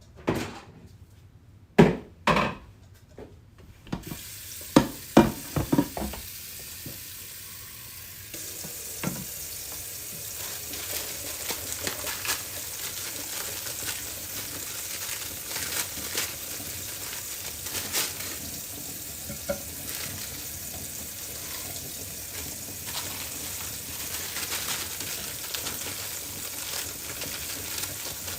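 A few clanks of pans and utensils, then food sizzling steadily in a hot pan, growing louder about eight seconds in, with occasional small clicks of a utensil against the pan.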